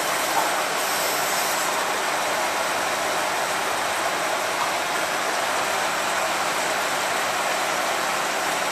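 Industrial degreasing parts washer with its spray system switched on: a steady hiss of liquid jets spraying inside the stainless-steel tank.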